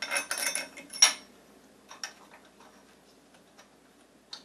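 Small metal clicks and clinks as bolts are threaded by hand into the tool rest's metal base: a quick cluster of sharp clicks, the loudest about a second in, then only a few faint ticks.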